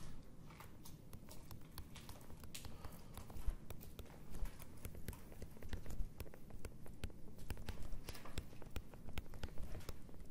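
Pen stylus tapping and scratching on a tablet screen during handwriting: a fast, irregular run of small clicks.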